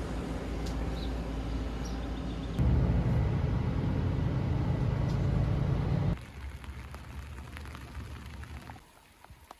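Steady low rumble of a running road vehicle. It jumps louder about two and a half seconds in, drops abruptly about six seconds in, and fades to a faint background near the end.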